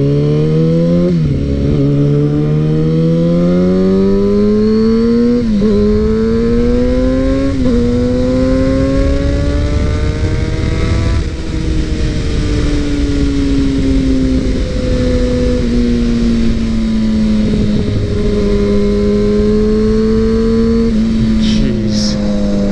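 Loud 2011 Kawasaki Ninja ZX-6R inline-four through a Two Brothers M2 slip-on exhaust, riding. The engine note climbs and drops back at upshifts about one, five and a half and seven and a half seconds in. From about halfway the note sinks slowly as the bike eases off, then holds fairly steady at a cruise.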